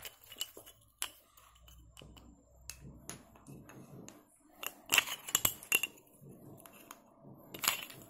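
Plain wooden building slats knocking and clacking together as they are picked up and laid into a frame: scattered light knocks, with a quick run of clacks about five seconds in and another near the end.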